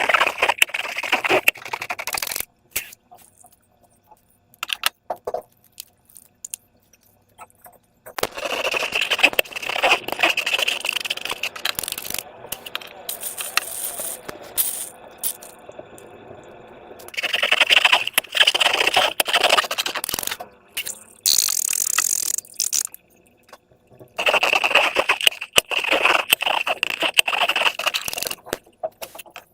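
Crackling, scraping handling noise from rubber balloons and slime being worked by hand. It comes in four bursts of a few seconds each, with quiet gaps between.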